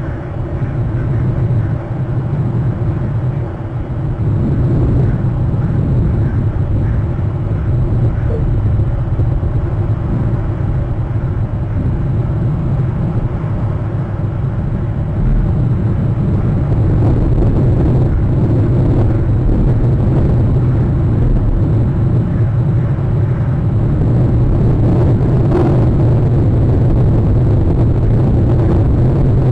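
Steady low rumble of wind buffeting the outdoor nest-camera's microphone, growing a little louder about halfway through.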